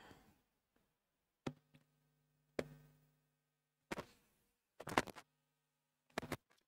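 About five short knocks and clicks at uneven intervals, the loudest about five seconds in. The one a little over two and a half seconds in leaves a low ringing hum that fades within a second.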